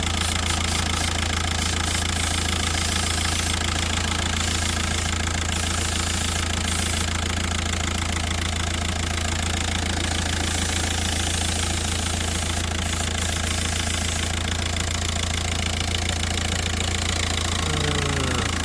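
Volkswagen 1.9 TDI diesel engine idling steadily, its revs unchanged while the intake is checked for an air leak. A brief falling tone comes near the end.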